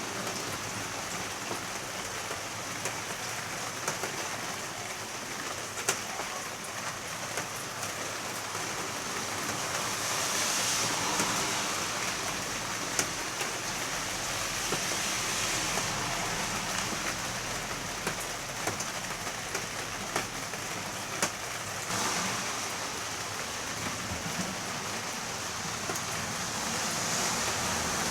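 Heavy rain falling steadily, with scattered sharp drops striking a hard surface.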